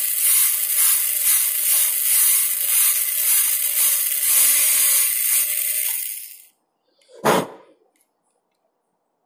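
High-speed dental handpiece running with a bur, giving a steady high hiss as it cuts the labial surface of a typodont premolar to join the depth orientation grooves during crown preparation. It stops about six and a half seconds in, and one knock follows about a second later.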